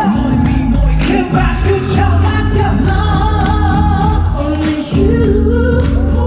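Live pop song performed in concert: a vocalist sings a held, wavering melody over loud band backing.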